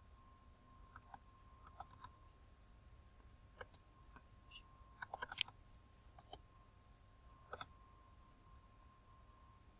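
Faint computer mouse clicks, scattered through the quiet, with a quick run of several clicks about five seconds in, over a faint steady electrical tone.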